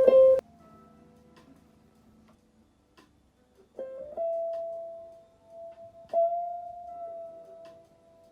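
Single guitar notes plucked and left to ring. The first steps up in pitch just after it is struck, and a second note comes about two seconds later and rings on.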